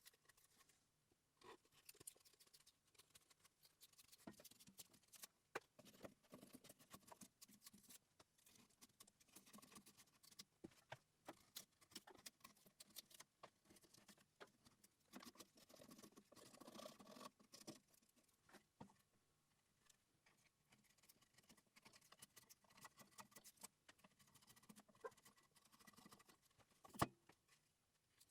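Bark being scraped and pried off a small log by hand: quiet, irregular clicks and short scrapes, busiest about halfway through, with one sharper knock near the end.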